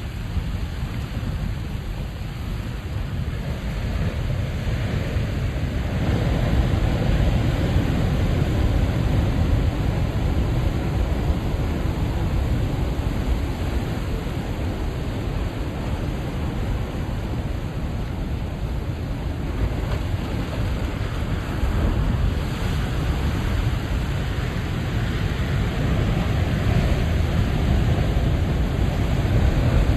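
Big ocean waves breaking and washing in at high tide, a continuous deep rumble of surf that swells louder several times: about 6 seconds in, again around 22 seconds, and near the end.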